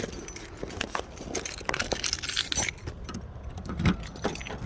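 Keys jangling amid a run of sharp clicks and knocks from a car's exterior door handle and latch being worked, with a denser jingle about two seconds in.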